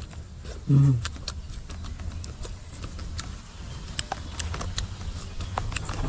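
A person eating with their mouth close to the microphone: irregular wet clicks and smacks of chewing, with a short hummed "mm" just under a second in.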